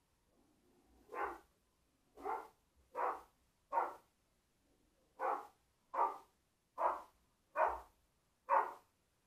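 Rottweiler barking at a radio-controlled toy car: nine single barks, each about a second or less apart, with a short pause in the middle.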